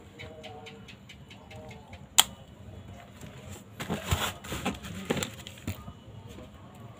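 Light clicks of a phone being handled, then one sharp click about two seconds in. From about four seconds in comes a spell of plastic crinkling as a clear plastic bag is pressed around the phone.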